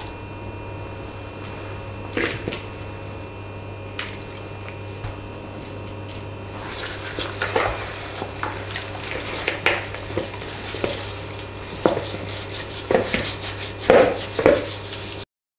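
Wet squelching and sloshing as gloved hands rub a raw whole chicken in a bowl of vinegar-and-salt cleaning mixture, with a few scattered knocks at first and busier handling in the second half. A steady low hum runs underneath.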